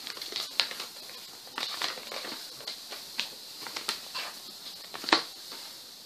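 A folded sheet of paper being unfolded and handled, crinkling and crackling irregularly, with the loudest crackle about five seconds in.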